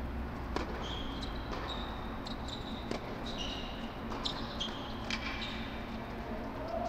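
A tennis point: a serve struck about half a second in, then two more racket-on-ball hits a couple of seconds apart, with short high squeaks of tennis shoes on the hard court between them. A steady low hum runs underneath.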